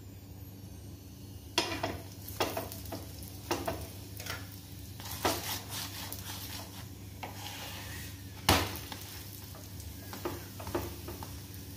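Wooden spatula pressing and scraping an oiled aloo paratha on a hot non-stick tawa: a string of short, sharp scrapes, the loudest about eight and a half seconds in, over a faint sizzle of frying oil.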